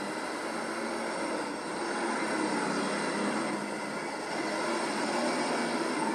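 Super stock pulling tractor built on a John Deere 4010 running flat out under load as it drags the weight sled, a loud continuous engine noise that swells slightly in the second half.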